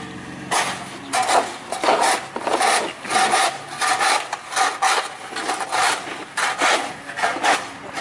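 Footsteps crunching in snow, a steady walking pace of about two steps a second.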